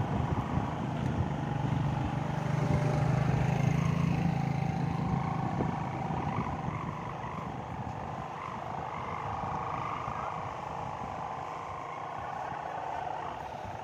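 Sawangan kite hummers droning overhead: several overlapping humming tones from the wind-driven hummers on large kites. A low hum is loudest a couple of seconds in, then eases off.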